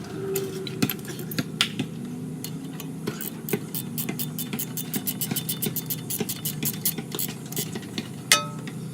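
Ratchet wrench clicking in quick runs while tightening the strut mounting nuts, over a steady low hum. Near the end comes one loud metallic clink that rings briefly.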